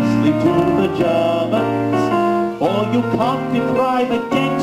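A man singing into a microphone over a piano or electric-keyboard accompaniment, amplified through a PA speaker.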